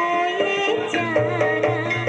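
Music played loud through a miniature sound system of small subwoofer and mid-range boxes: a sliding melody line over percussion, with a deep bass line coming in about a second in.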